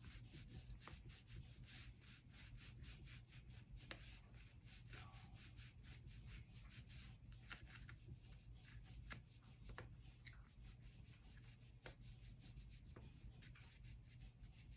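Faint scratching of oil pastel on paper, in many quick back-and-forth strokes, over a low steady hum.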